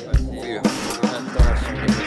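Backing music with a kick drum and bass beat.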